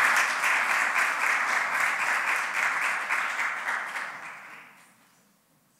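Audience applauding, the clapping dying away about four to five seconds in.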